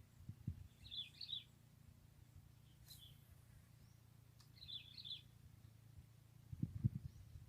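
Small birds chirping in short twittering bursts, three times a couple of seconds apart, over a low steady rumble. A few dull low thumps come near the start, and a louder group of them comes near the end.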